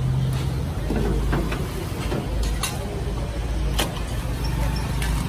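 Busy street ambience: a steady low rumble of traffic and engines, with occasional sharp clicks and clinks.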